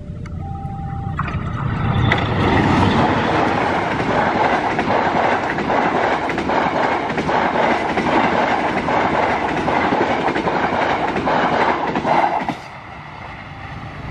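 A level-crossing alarm alternating between two notes, then a diesel-hauled passenger train passing close at speed: the rush of the carriages with a steady clickety-clack of wheels over the rail joints. The noise cuts off sharply near the end.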